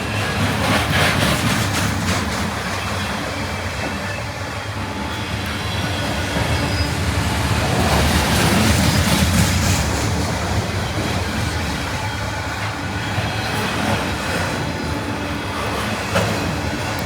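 Freight train rolling past: a steady rumble and clatter of wheels on the rails, with some wheel squeal, growing louder about halfway through and then easing.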